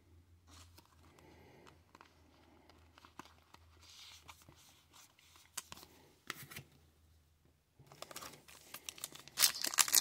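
Faint rustling and small crinkles of trading cards and a foil card pack being handled, then near the end a foil-wrapped Upper Deck hockey card pack being torn open with loud crinkling.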